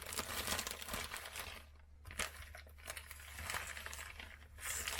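Plastic vacuum-seal bags crinkling and rustling in irregular bursts as the sous-vide-cooked short rib packs are handled and pulled out of a larger bag.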